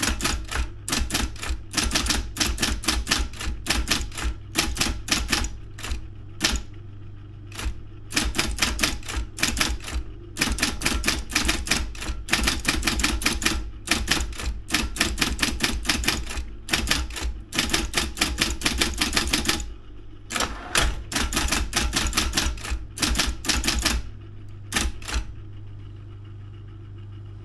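Daro 202 electric typewriter typing in fast runs of key strikes with a few short pauses, over a steady low hum. The typing stops about 25 seconds in, leaving only the hum.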